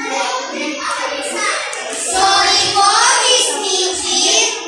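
Children's voices singing together, with some chatter mixed in.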